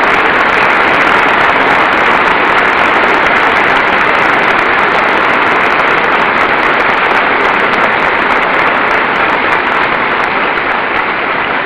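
Sustained applause from a large seated audience of legislators, a dense steady clapping that begins to ease near the end.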